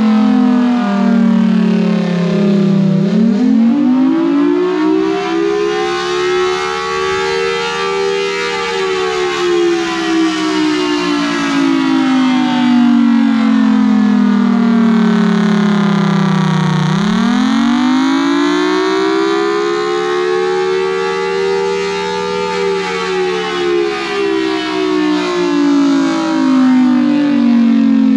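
Federal Signal Thunderbolt 1003 outdoor warning siren sounding a wail. Its pitch falls, then climbs for about five seconds and sinks slowly for about eight, and the cycle repeats twice.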